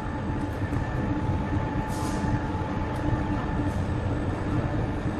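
A heavy machine running steadily: a low rumble with a constant hum over it.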